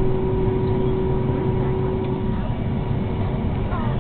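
Steady low rumble of cabin noise aboard a Boeing 757-200 after landing, with a steady hum that cuts out a little over two seconds in.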